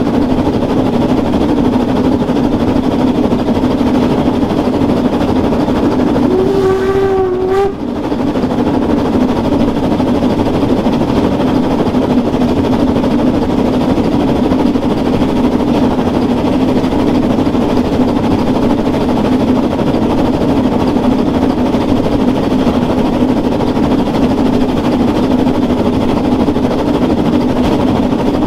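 Narrow-gauge steam train running along with a steady, loud ride noise. A single whistle blast of about a second and a half sounds about seven seconds in.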